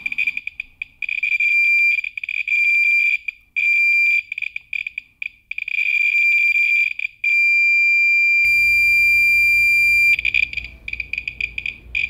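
Handheld radiation detector's beeper chirping rapidly on one high tone as an americium-241 alpha source from a household smoke detector is held almost against its probe. About seven seconds in the chirps merge into one continuous tone for around three seconds, then break back into rapid chirps.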